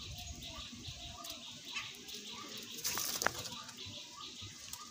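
Pigeons flocking around a hand of grain, with a short flutter of wings about three seconds in, over a fast run of faint bird chirps repeating about four times a second.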